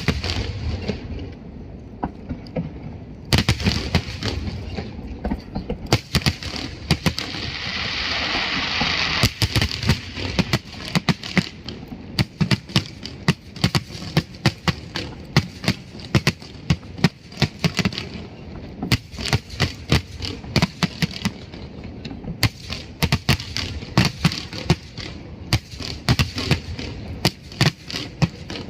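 Fireworks display: aerial shells bursting in quick succession, many sharp bangs close together, with a stretch of hissing crackle from about seven to ten seconds in.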